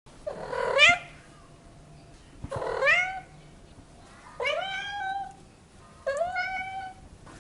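A cat meowing four times, about one call every two seconds, each meow rising in pitch.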